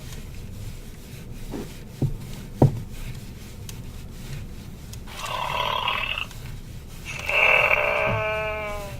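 A sleeping Furby Boom toy playing electronic snoring sounds through its small speaker: two snores, the second longer, in the latter half. Before them come three sharp clicks.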